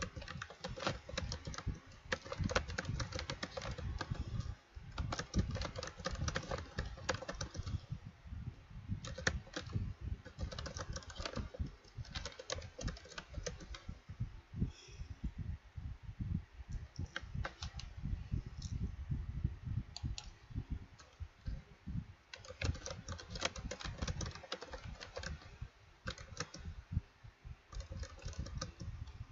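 Typing on a computer keyboard: quick runs of keystrokes in bursts, broken by a couple of short pauses a little before and after the middle.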